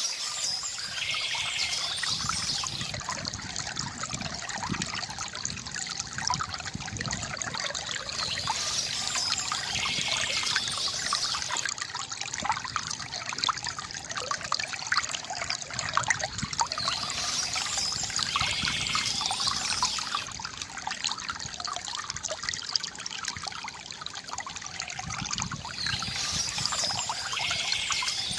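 Water trickling and splashing steadily from a bamboo fountain spout, a continuous gurgling dribble.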